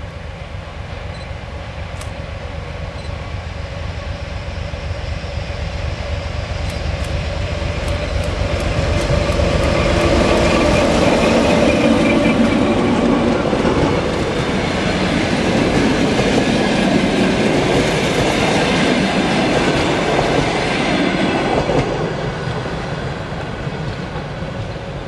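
A ChME3 diesel locomotive hauling passenger coaches passes by. Its engine grows louder as it approaches and is loudest about halfway through. The coaches then roll past, wheels clicking over the rail joints, and the sound fades near the end.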